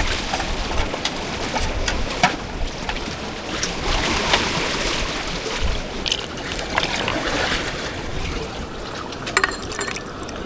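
Sea water sloshing and splashing against a bamboo raft in heavy rain, a steady rushing hiss broken by irregular sharp splashes and drips.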